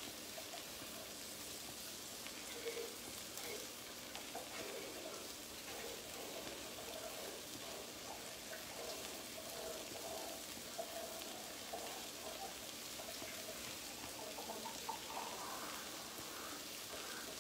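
Turkey bacon frying in a griddle pan on a gas range: a steady, soft sizzle with faint pops.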